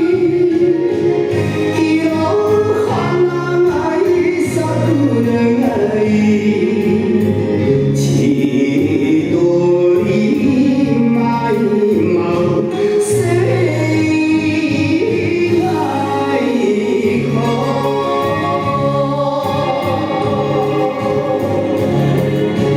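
Recorded Japanese song playing: a solo singing voice carrying a slow melody over sustained instrumental accompaniment, the music for a Nihon buyo dance.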